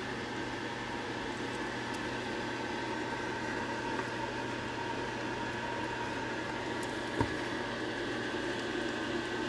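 Steady mechanical hum and hiss with a few constant tones, with one brief click about seven seconds in.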